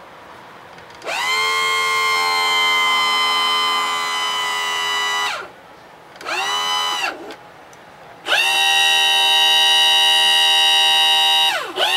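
Power tilt-and-trim pump's electric motor whining in runs, its pitch rising as it spins up and dropping as it stops. It runs for about four seconds, gives a short blip, runs again for about three and a half seconds, then is bumped several times in quick succession near the end. The unit is being cycled up and down to purge air after refilling with fluid.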